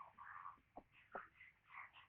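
Faint rapid series of short squeaky calls from a young animal, four or five in two seconds, with a couple of light ticks in between.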